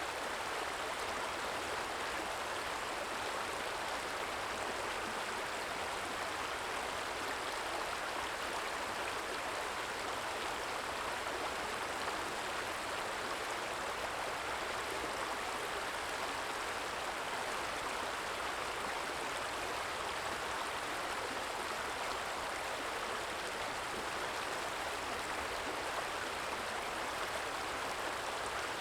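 Small stream trickling and babbling steadily.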